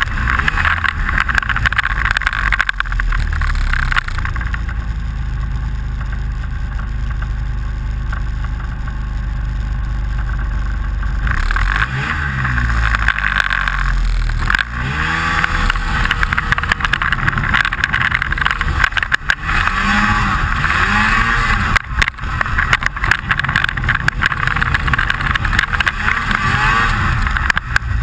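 Snowmobile engine heard on board, running under way with a constant rattle; it holds steady and eases for a while, then revs up and down repeatedly from about halfway through.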